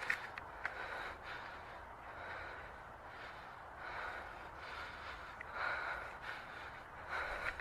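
Faint breathing in slow swells, about one every one and a half to two seconds.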